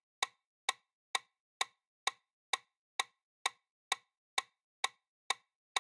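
Countdown-timer ticking sound effect: sharp clock-like ticks, evenly spaced at about two a second. It marks the answer time running down on a quiz question.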